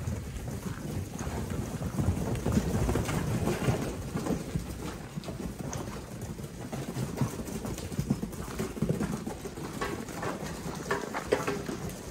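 A flock of Hissar sheep moving about on a straw-littered earth floor: many irregular hoof steps and shuffling.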